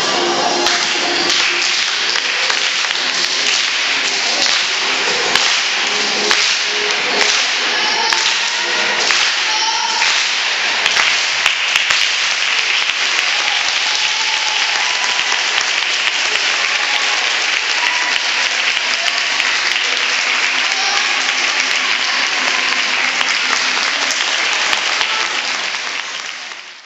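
Audience clapping and cheering, with the tail of the dance music still heard in the first several seconds. It fades out at the very end.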